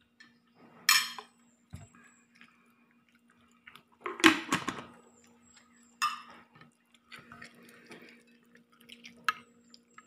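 A person eating a brothy vegetable dish: a few short, wet slurping and mouth sounds, the loudest about four seconds in. Under them runs a faint steady hum from an electric fan.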